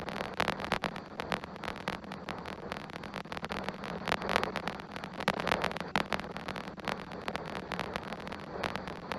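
Strong wind buffeting an outdoor webcam microphone in uneven gusts: a rough rushing noise with frequent irregular crackles.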